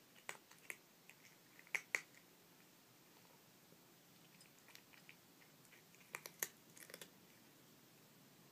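A black-and-white cat crunching dry kibble: faint, sharp crunches in short clusters, loudest about two seconds in and again past six seconds.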